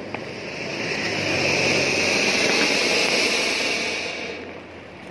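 Ground fountain firework hissing as it sprays a column of sparks, swelling over the first couple of seconds and dying down near the end.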